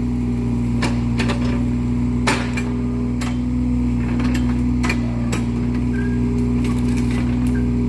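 Excavator engine running steadily, with sharp knocks at irregular intervals as the machine's thumb and bucket work.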